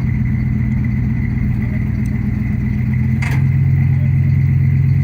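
An engine running steadily at idle, with a sharp click a little over three seconds in, after which it runs slightly louder.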